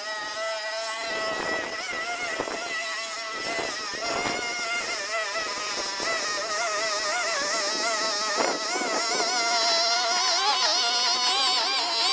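Handheld petrol string trimmer (strimmer) engine running, its high pitch wavering up and down as the throttle is worked. It grows louder near the end.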